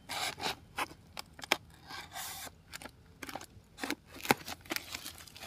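Irregular clicks and crinkling of gloved hands handling a wire-mesh snake trap and its woven plastic sack wrapping, with a longer rustle about two seconds in.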